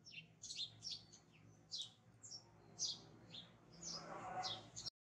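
Small birds chirping repeatedly: short, high, quickly sweeping chirps about three times a second, with a soft rustle about four seconds in.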